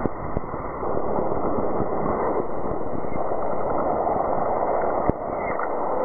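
Seismometer ground-motion recording sped up into audio: a steady rushing hiss of background seismic noise from wind, microseisms and traffic, with a few sharp clicks, one just after the start and one about five seconds in.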